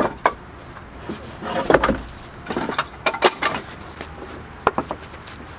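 Thick, freshly sawn black locust planks knocking and clattering against each other and a wooden pallet as they are laid on a stack, with a handful of separate wooden knocks.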